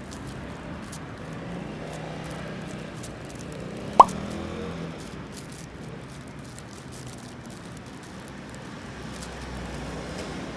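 Kitchen cooking sounds: a steady hiss with faint crackles, and one sharp plop with a quick rising pitch about four seconds in.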